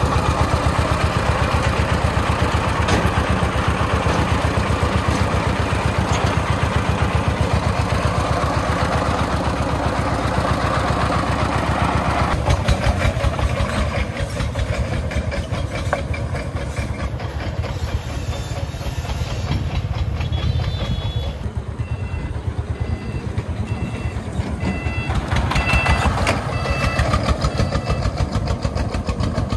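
Single-cylinder diesel engine of a công nông (Vietnamese three-wheeled farm truck) running under load with a rapid, even chugging.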